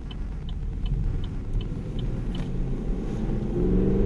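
Holden Commodore SS-V's LS3 V8 and road rumble heard inside the cabin while driving, with a light regular ticking about three times a second for the first two and a half seconds. Near the end the engine note starts to rise as the car accelerates.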